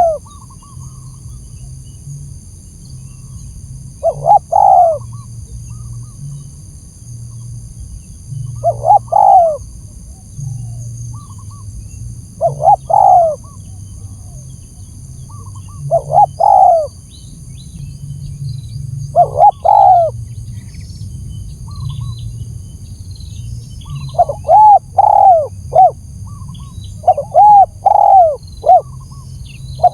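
Spotted dove (tekukur) cooing: short phrases come every three to four seconds, then from about three-quarters of the way through they run on in quicker series of three or four coos. This is a lure call of the kind used to draw wild doves in.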